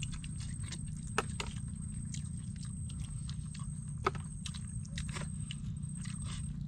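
People chewing and picking at food with their hands: scattered small wet clicks and smacks, the two sharpest about a second in and about four seconds in, over a steady low rumble.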